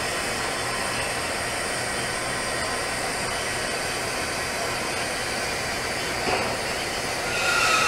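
TIG welding arc on a steel pipe joint, a steady even hiss. A steady tone comes in near the end.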